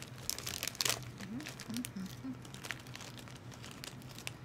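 Crinkly plastic Mini Cheddars snack packets rustling and crackling as they are opened and handled. The crackle is loudest about a second in and thins out toward the end.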